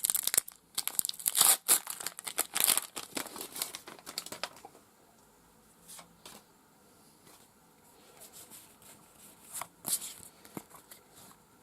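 Foil Pokémon booster-pack wrapper being torn open and crinkled, dense for the first four or five seconds, then a few faint rustles and a brief crinkle near the end.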